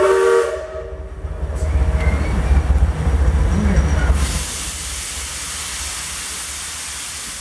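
Steam locomotive venting steam: a steady hiss that starts suddenly about four seconds in, after a low rumble.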